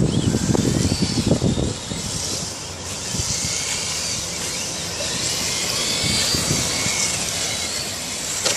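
Radio-controlled drift cars running, their motors whining up and down in pitch as the throttle changes, over a steady high hiss. A louder low rumble fills the first couple of seconds, then drops away.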